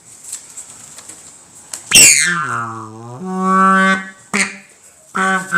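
Horn-like notes blown with buzzing lips, as on a brass instrument. About two seconds in, a sharp blast drops into a low held note, then steps up to a higher held note. Near the end there is a second short low-and-high pair.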